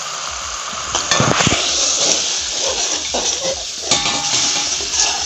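Tomato-and-spice masala sizzling as it fries in a metal wok just after a splash of water, while a metal slotted spoon stirs and scrapes against the pan. The stirring and sizzling get louder from about a second in.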